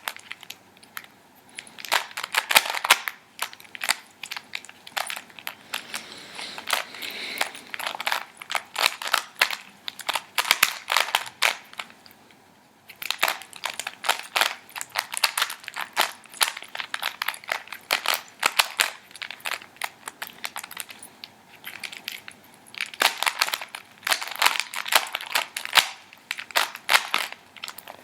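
Rubik's cube being turned rapidly by hand during a solve: flurries of quick plastic clicks and clacks as the layers turn, with short gaps between bursts and a brief pause about twelve seconds in.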